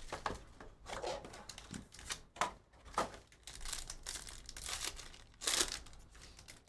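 Plastic wrapping on trading card boxes and packs crinkling and tearing as it is ripped open, in a string of short rustles and rips, the loudest about five and a half seconds in.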